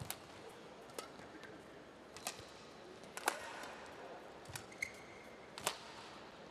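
Badminton rally: sharp racquet strikes on a shuttlecock, about one a second, the loudest about three seconds in. A brief shoe squeak comes on the court surface near the end, over a steady arena background.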